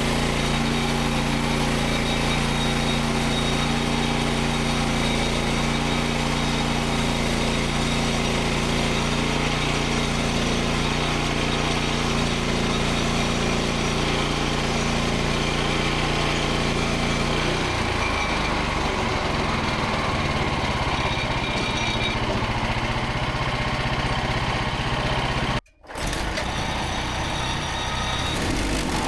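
Petrol engine of a Frontier OS27 bandsaw sawmill running steadily. About two-thirds of the way in, its even note gives way to a rougher, noisier sound. The sound cuts out for a moment near the end.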